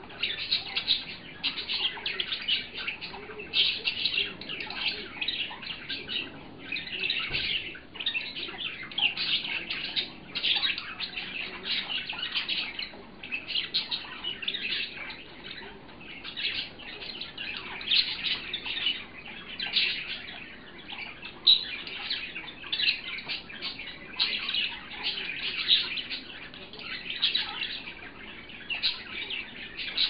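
Pet budgerigars chattering and warbling without a break, a fast run of high, scratchy chirps.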